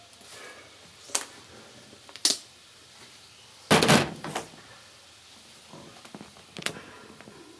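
A few separate knocks and clunks of hard objects being handled, with a louder cluster of clattering knocks about four seconds in.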